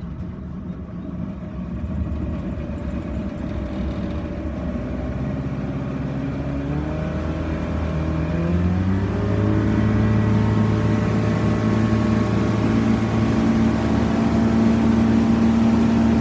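Boat motor speeding up: its pitch climbs steadily for several seconds about a quarter of the way in, then holds at an even, louder running speed as the boat gets under way.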